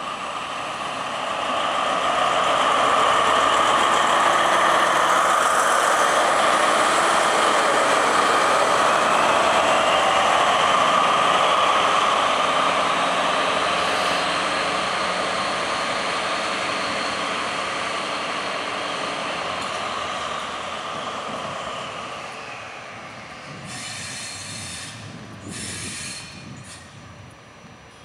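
Intercity train hauled by DB class 218 diesel-hydraulic locomotives moving past at close range, its wheels squealing steadily with a higher whine that rises and then falls. Loud for the first dozen seconds, then fading away, with a few short clanks near the end.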